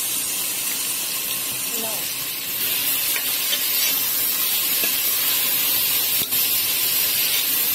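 Sliced onions and green chillies sizzling in hot oil in a metal pot as they are stirred with a spoon; the sizzle gets louder about two and a half seconds in.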